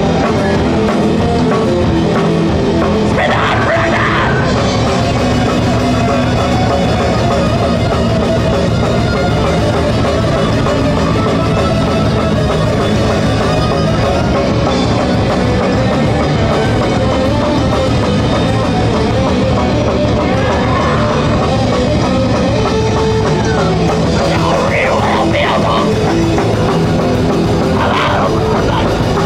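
Live thrash metal band playing a fast song: distorted electric guitar and drum kit at a loud, unbroken level.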